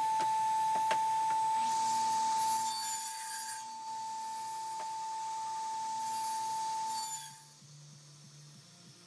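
Radial arm saw running with a steady high whine, its blade cutting into the workpiece twice, about two seconds in and again around six seconds. The saw sound cuts off suddenly near the end, leaving faint music.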